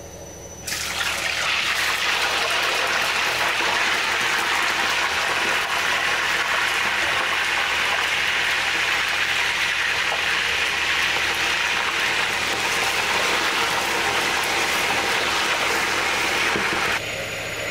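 Hot oil sizzling loudly and steadily as food deep-fries in a pot. It starts suddenly about a second in and cuts off abruptly near the end.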